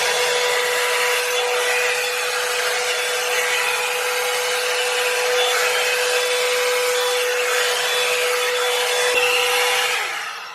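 Revlon One-Step hair dryer brush running on its high setting: a steady motor whine over a loud rush of air. Near the end it is switched off and the whine falls away as it winds down.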